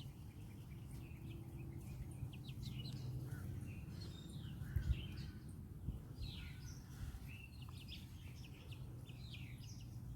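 Month-old Black Copper Marans chicks peeping in short, scattered downward chirps over a steady low rumble, with a couple of dull thumps about five seconds in.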